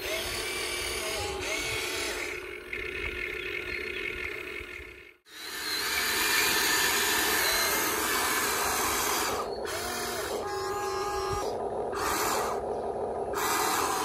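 Huina 1550 RC excavator's electric motors and gearboxes whining as the arm digs and swings, the pitch rising and falling briefly now and then. The sound cuts out for a moment about five seconds in.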